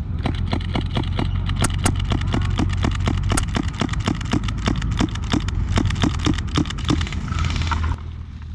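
A rapid run of airsoft shots, about five or six sharp pops a second for roughly eight seconds, over the steady low running of an armoured vehicle's engine close by.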